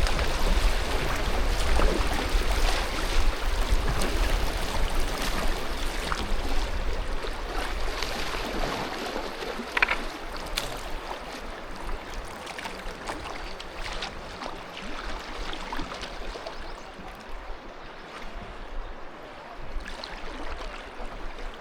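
Rushing river water in a rapids section, heard from a kayak, with a few sharp splashes. It is loudest at first and grows quieter through the second half as the rough water is left behind.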